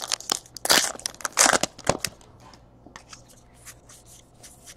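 A pack of 2017 Topps Allen & Ginter baseball cards being torn open, its wrapper crinkling and crackling loudly for about the first two seconds. Lighter clicks and rustles follow as the cards are handled.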